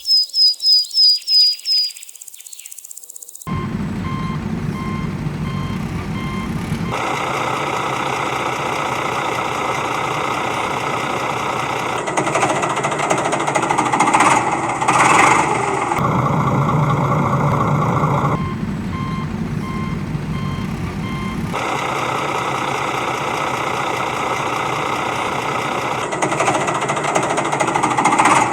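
Heavy construction-vehicle engine running steadily with a reversing alarm beeping in several stretches. A quick run of high chirps comes at the very start, and the engine sets in a few seconds later.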